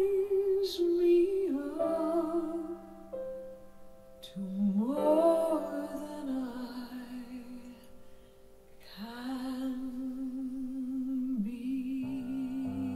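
Recorded slow ballad: a woman's voice sings long, held notes with vibrato over soft accompaniment. It swoops up into a phrase about a third of the way in and holds one long note from about two-thirds in. A piano comes in near the end.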